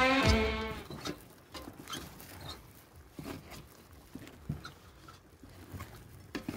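Background music trails off in the first second. Then a thick chicken curry simmers in a camp wok, giving soft, irregular pops and plops.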